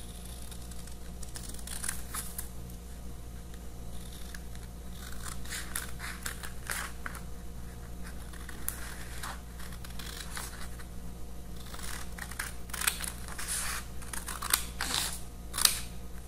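Scissors cutting through paper in a run of short snips, with a few louder snips near the end.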